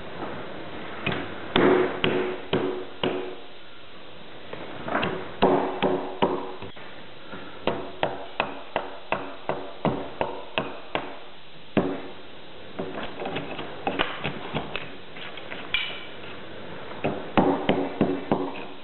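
Hand axe chopping into a squared log to hew a log-building corner notch: short, sharp blows in quick irregular bunches, some leaving a brief ring.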